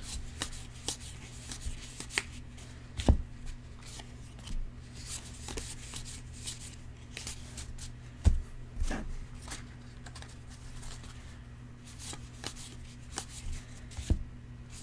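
A stack of Allen and Ginter baseball cards being flipped and slid through by hand, with soft clicks and rustles of card on card. Three louder low thumps come about 3, 8 and 14 seconds in, over a steady low hum.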